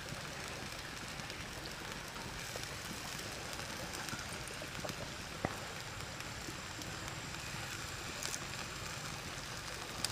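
Whole shrimp sizzling on a hot stone slab over a wood fire: a steady hiss with scattered small ticks and pops, one sharper pop about halfway through.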